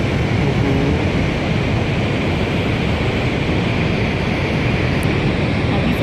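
Steady roar of a large waterfall pouring into a river canyon: a loud, even rush of falling and churning water.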